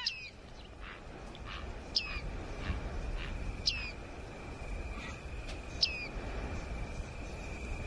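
Dusk nature ambience: a bird's short, falling call repeated about every two seconds, over a low rumble. A steady high-pitched tone joins about two seconds in.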